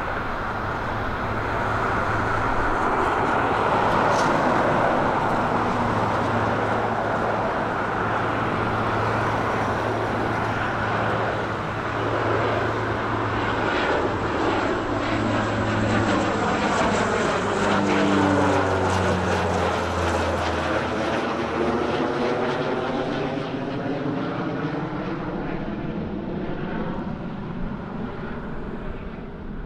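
Antonov An-26's twin turboprop engines at takeoff power as it climbs out and passes overhead: a steady propeller drone whose pitch drops about two-thirds of the way through as it goes by, then fades slightly as it flies away.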